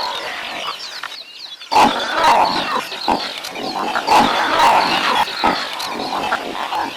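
Lions grunting and calling, several overlapping calls, louder from about two seconds in.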